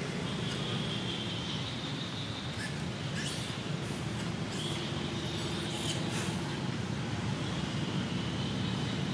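Steady outdoor background noise: a continuous low rumble, a thin high steady tone that comes and goes, and a few short crackles a few seconds in.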